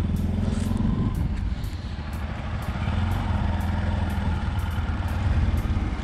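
Motorcycle engine running as the bike rides along, a steady low drone that eases off briefly about two seconds in.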